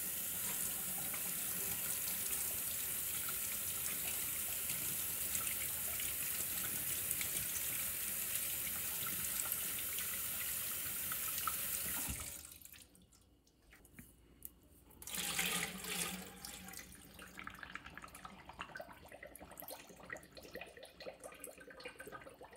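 Kitchen tap running onto a water-filter cartridge held in the stream, splashing into a stainless steel sink; the tap is shut off about twelve seconds in. After a short pause there is a splash, then faint, irregular bubbling and water sounds as the cartridge soaks in a pot of water, letting out air bubbles.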